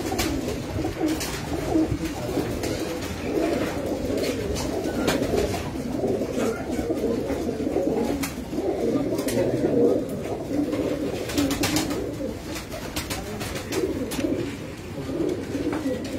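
A loft full of Fakir Gul pigeons cooing together in a steady, overlapping chorus, with scattered sharp clicks among it.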